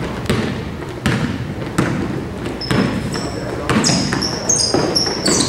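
A basketball bounced on a court several times during play. From about halfway through, sneakers squeak in short, high chirps, and voices run underneath.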